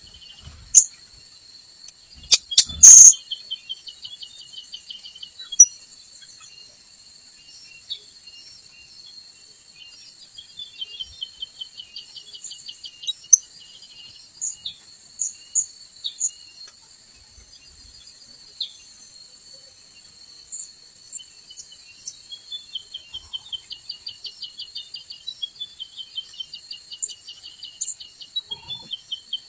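Steady high-pitched insect drone at two pitches, with short sharp high bird chirps scattered throughout and runs of rapid ticking notes. A loud click comes about three seconds in.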